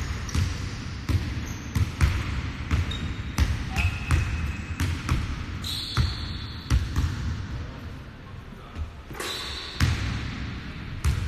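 Irregular thuds of sneakers landing and pushing off on a hardwood gym floor, a few each second, with several short high sneaker squeaks.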